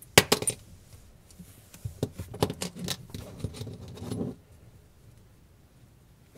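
Small metal parts of a dismantled Rose V2-S rebuildable atomizer clinking and clattering as they are handled and set down. A few sharp clicks come at the start, then a run of light taps and rattles for about two seconds.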